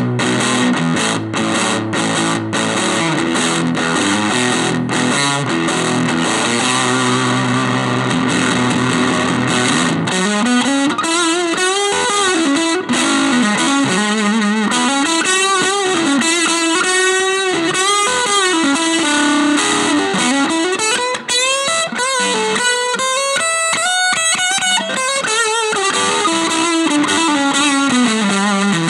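Electric guitar played through a Veri-Tone Arcturus Class A preamp pedal. Strummed chords come first, then from about ten seconds in a single-note lead line with string bends and vibrato.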